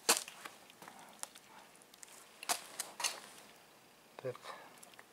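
Cat eating dry kibble from a bowl: a scatter of short, sharp crunches and clicks, the loudest just after the start and again around two and a half to three seconds in.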